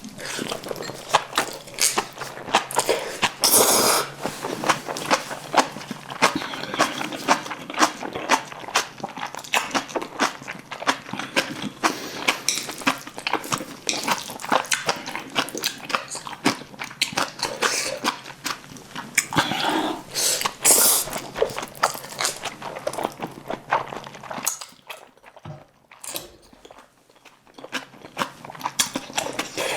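Close-miked chewing and biting with some crunching, dense clicky eating sounds of black bean noodles and spicy kimchi. It goes quieter for a few seconds near the end, then starts again.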